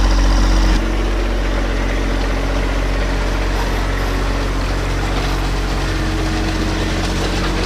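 John Deere 1025R compact tractor's three-cylinder diesel running steadily while its rear scrape blade drags through loose gravel, the stones scraping and rattling against the blade.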